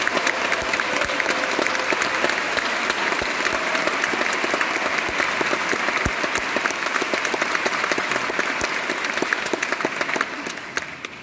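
Audience applauding: dense, steady clapping that thins out and dies away in the last second.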